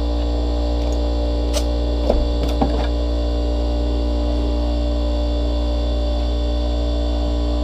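Steady electrical hum made up of several fixed tones, with a single click about a second and a half in and two brief faint squeaks around two seconds in.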